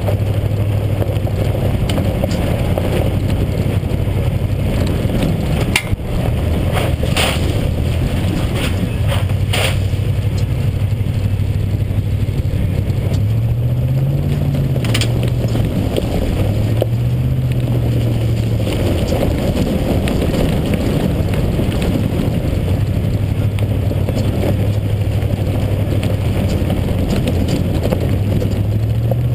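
2011 Ford F-150 SVT Raptor's V8 through a Magnaflow exhaust, cruising steadily with a low drone that rises and falls briefly twice around the middle as the throttle changes. Tyres crunch on a gravel road, with a few sharp clicks in the first half.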